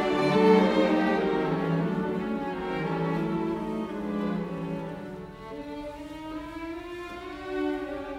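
Background music of bowed strings playing slow, held notes.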